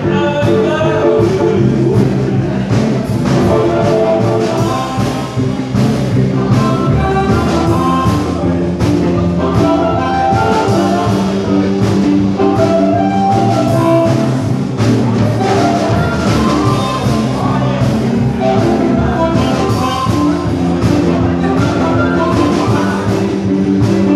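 Live blues band playing electric guitar and drums, with an amplified harmonica, played into a cupped microphone, carrying the melody.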